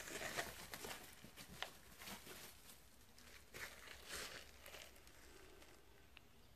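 Faint rustling and crunching of dry leaves and dirt as kittens scamper and pounce, in scattered short bursts that thin out near the end.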